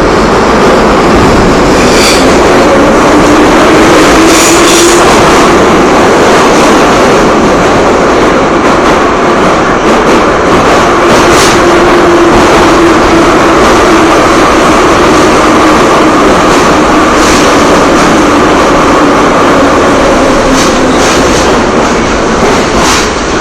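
Moscow Metro train running at speed through a tunnel, heard inside the carriage: a loud, steady rumble with a motor whine that rises and falls, and scattered clacks from the wheels on the rails. The noise eases a little near the end.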